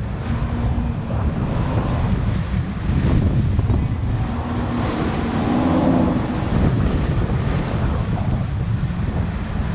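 Jet ski engine running, largely buried under heavy wind buffeting on the action-camera microphone, with rushing water.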